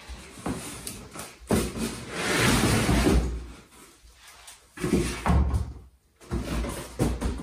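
A long hard plastic rifle case being slid and lifted out of a cardboard box, with cardboard scraping and rustling, then heavy hollow knocks as the case is set down on the floor.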